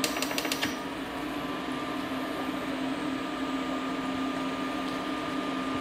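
Steady kitchen appliance hum with fan noise and a thin high whine, with a quick run of sharp clicks in the first second as a spoon works tomato sauce in a stainless-steel pan.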